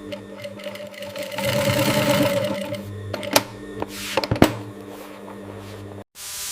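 A small machine whirring over a steady background hum, swelling for about a second and a half, followed by a few sharp clicks. It cuts off abruptly near the end, giving way to a steady hiss.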